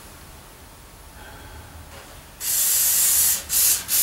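Aerosol can of penetrating oil spraying onto a rust-seized cast-iron leg vise: one long hissing squirt about two and a half seconds in, then two short squirts.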